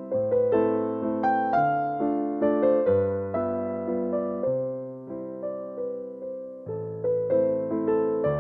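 Background music: a gentle electric piano playing a slow melody over sustained chords, each note struck and fading.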